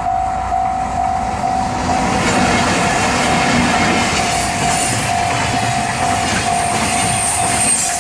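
Freight train rolling past behind double-headed EF64 electric locomotives, wagon wheels clattering over the rail joints and growing louder about two seconds in, with a high hiss above. A bell-like tone repeats about twice a second throughout.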